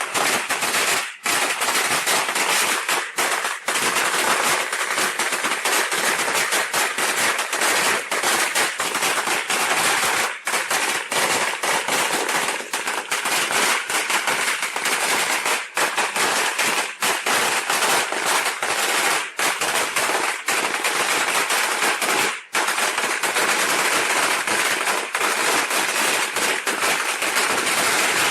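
A long string of firecrackers going off in a dense, continuous crackle of rapid bangs. It dips briefly about a second in and again about three-quarters of the way through.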